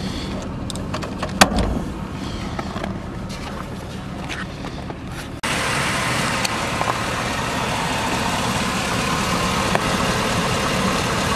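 2002 Cadillac Escalade's 6.0 L Vortec HO V8 idling steadily, with a few sharp clicks and knocks from handling the door trim and floor mat at first. About five seconds in the engine sound jumps louder and closer, as heard from over the open engine bay.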